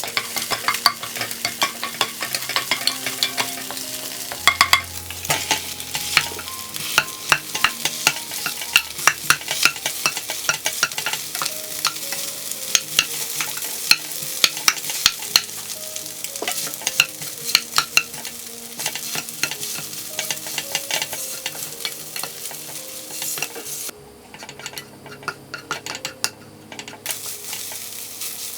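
Egg fried rice being stir-fried in a pan: steady sizzling with frequent sharp clicks and scrapes of the spatula against the pan. The sizzle drops away for about three seconds near the end, then returns.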